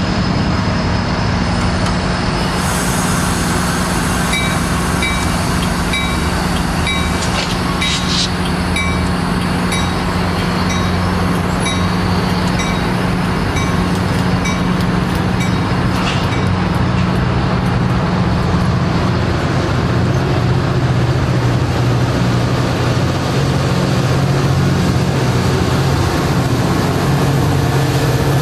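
Diesel locomotive engine running steadily under load, with a bell ringing at an even pace of a little more than once a second for about ten seconds, starting a few seconds in.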